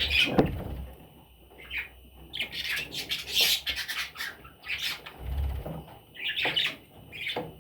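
Budgerigars chattering and squawking in short, repeated bursts, with a couple of low thumps.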